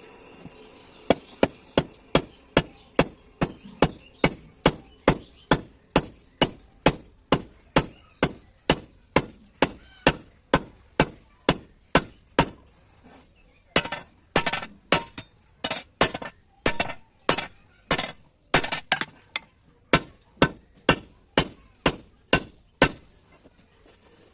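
Blacksmith's hand hammer striking steel on an anvil in a steady rhythm, about two to three blows a second. There is a short pause about halfway through, after which the blows come louder for a few seconds.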